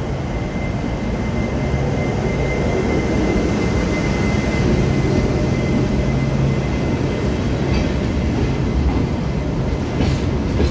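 Taiwan Railways electric locomotive E234 passing close by, with a steady low hum and the rumble of wheels on rail. It is followed by empty ballast hopper wagons rolling past.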